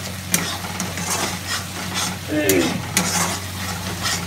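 A spatula stirring and scraping through thick masala paste in a steel kadhai, with repeated short scrapes and knocks against the metal, over the steady sizzle of the paste frying in oil. The tomato-spice masala is in its last stage of frying, cooked down until the oil separates at the edges.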